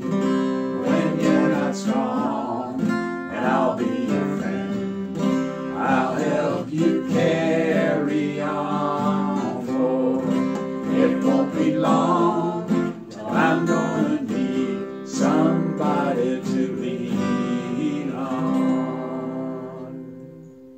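Two acoustic guitars strumming chords, with voices singing along; near the end the strumming stops and the last chord rings out and fades away.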